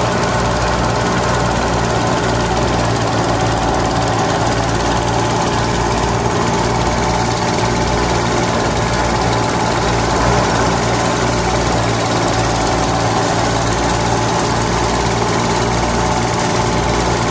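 Miniature model threshing machine running steadily as rice stalks are fed into it: a small motor turns the spiked drum through a belt, giving a steady mechanical hum with a low pulse about once a second.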